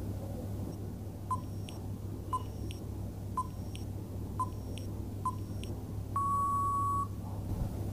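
Countdown timer sound effect: five short beeps about a second apart, then one longer beep lasting about a second, over a faint steady hum.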